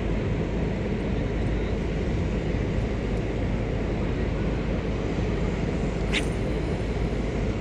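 Wind buffeting the microphone, a steady low rumble, with one sharp click about six seconds in.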